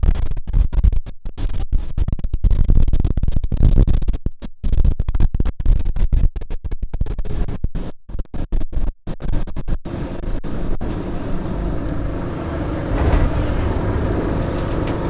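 Rough rubbing and buffeting noise on the microphone aboard a moving tram, cutting in and out for about ten seconds, then giving way to the tram's steady running rumble.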